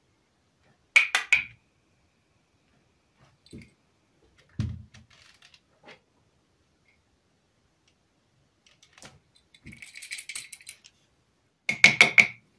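Short bursts of rapid metallic clinking and rattling, like a small loose nut tumbling inside the radio chassis, about a second in, again around ten seconds and near the end, with a soft knock and a few faint ticks in between.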